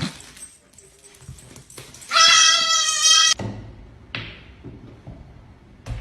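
A pet animal's loud, drawn-out call, held on one pitch for just over a second starting about two seconds in, then cut off abruptly; softer knocks and rustling around it.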